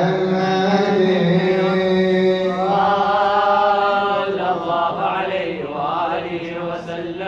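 Several men chanting an unaccompanied Arabic devotional melody together, in long held notes that wind up and down in pitch partway through.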